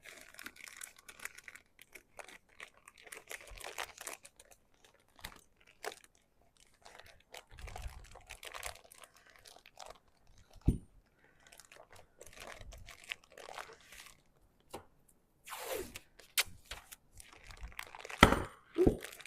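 Plastic zip-top bag crinkling and rustling as a lamp cord is pushed into it and the bag is handled, with a few light knocks.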